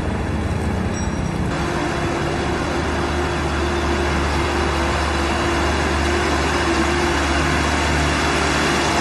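Busy street traffic, with a truck's engine running close by in a steady low hum alongside buses and other vehicles.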